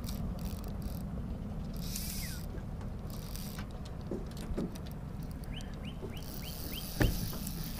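Boat outboard motor running steadily at idle, with small clicks and handling noises from the fly rod and reel. Near the end there is a quick run of about six short, high, rising chirps, then a single thump.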